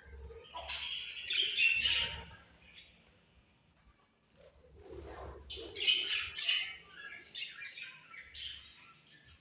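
Budgerigars chirping and chattering in two busy bouts with a short lull between.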